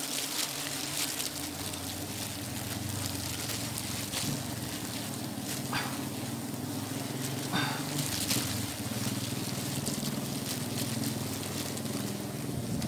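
Honeybees on an exposed wild comb buzzing steadily as the comb is cut with a knife, with a few short scratchy sounds in the middle.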